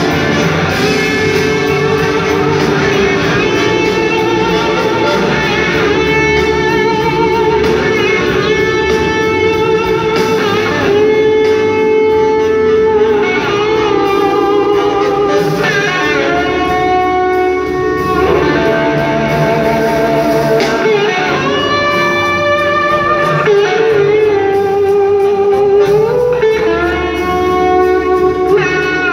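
Live blues-rock band playing, with an electric guitar taking an instrumental lead of long sustained notes that bend and slide in pitch, over bass, drums and keyboards.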